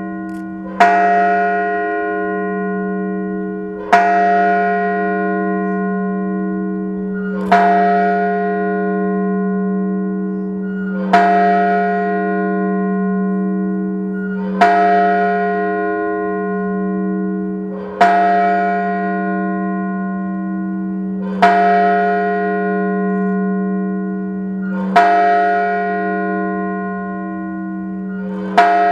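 The Maverick Hose Co. bell tolling slowly, nine strokes about three and a half seconds apart. Each stroke rings on with a wavering low hum still sounding when the next one lands. It is a memorial toll, one stroke per victim.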